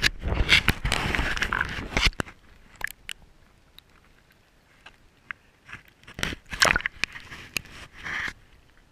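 Water crackling, sloshing and splashing against a waterproof action-camera housing as it moves through the water and breaks the surface. The noise is loud at the start, drops away in the middle, and comes back in a cluster of splashes near the end.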